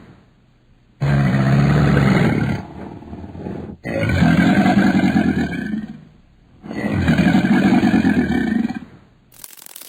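A large animal roaring in three drawn-out, low calls of about two seconds each, with short pauses between them.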